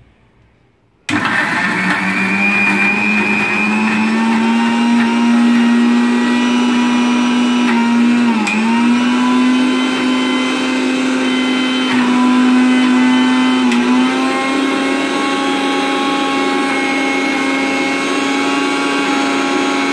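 Electric mixer grinder with a stainless steel jar switched on about a second in, its motor running steadily at high speed while grinding dried chilies, garlic and small onions. Its pitch dips briefly twice.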